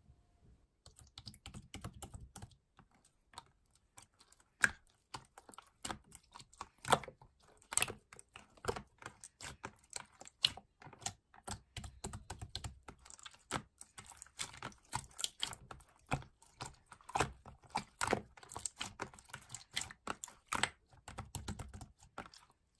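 Irregular, rapid clicking and tapping, with some low thuds, starting about a second in and running on unevenly.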